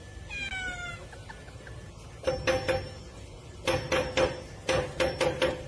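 Metal door bolt and hanging padlock rattled by a cat's paws: three bursts of quick metallic knocks, each with a short ringing, in the second half. A brief falling call near the start.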